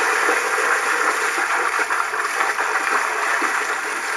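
Water splashing and churning around a person plunging and moving through it, a steady rushing noise.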